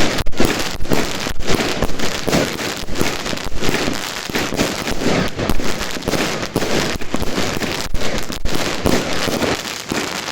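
Evolution Snowstorm firework going off, a dense, continuous crackling made of many quick pops and small bangs with no letup.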